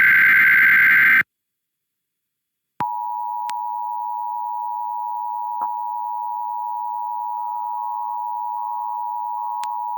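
Emergency Alert System digital header burst, a buzzy data squeal that cuts off about a second in. After a short silence, the EAS two-tone attention signal (853 and 960 Hz together) starts about three seconds in and holds steady.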